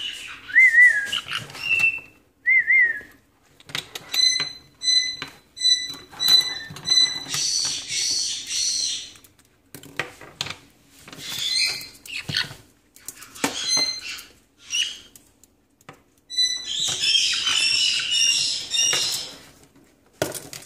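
Baby caiques chirping and squawking as they play: short gliding chirps, a run of quick pitched notes about two a second, and two longer harsh squawking stretches, with sharp clicks from plastic toys knocking on a stone countertop.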